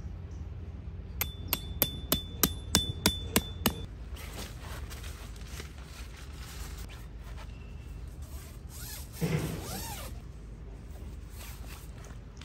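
A metal tent peg being hammered into the ground: about nine quick strikes in two and a half seconds, each with a metallic ring. About nine seconds in there is one brief louder sound.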